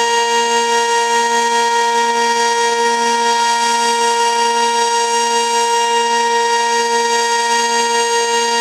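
Sentry 15V2T electromechanical outdoor warning siren sounding the Full Alert signal in a routine test: one loud, steady held tone with a slight regular waver in loudness.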